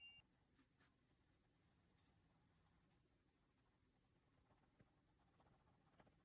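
Near silence, with faint scratching of Mitsubishi uni colouring pencil strokes on paper.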